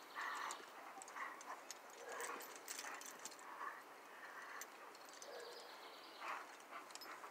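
Young pit bulls growling in play while they tug on a rope toy, with light clinks of their tie-out chains. The growls come in short bursts, and the chain clinks are scattered between them.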